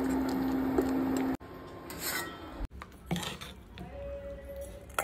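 A loud, steady rushing noise with a low hum that cuts off abruptly about a second and a half in. It is followed by quieter clinking and scraping of kitchen utensils against dishes and pots.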